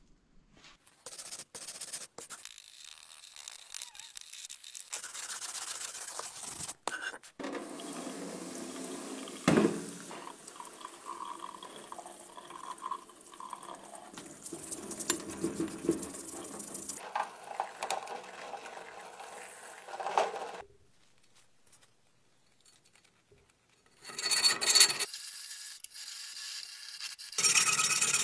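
Scrubbing and rinsing a freshly cast metal mask in a steel sink: brushing and rubbing with water running. Near the end, a rotary tool grinds on the casting in two short loud spells.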